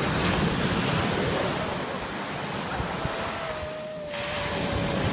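Sea waves washing in, with wind buffeting the microphone. A faint held tone sounds from about three seconds in, sinking slightly in pitch.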